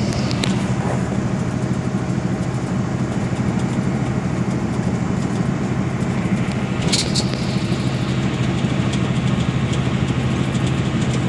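Volvo semi truck's diesel engine droning steadily inside the cab at highway speed, with road and wind noise. A brief high-pitched squeak sounds about seven seconds in.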